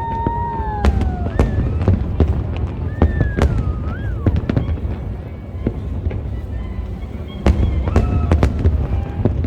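Fireworks display: many sharp bangs in rapid, irregular succession over a continuous low rumble, with a few gliding whistle-like tones near the start and again about three seconds in.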